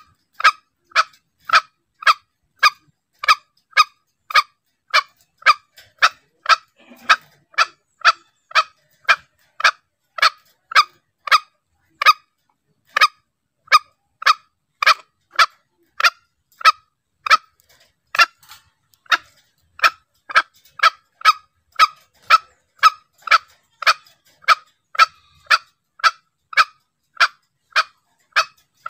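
Green junglefowl lure call: a short, sharp call repeated steadily a little under twice a second with silence between notes, and an occasional slightly longer pause.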